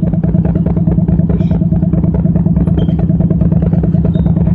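AGE-30 diesel locomotive running steadily at standstill, its air compressor on: a loud, even drone with a fast regular pulse. A few faint, short high squeaks sound over it.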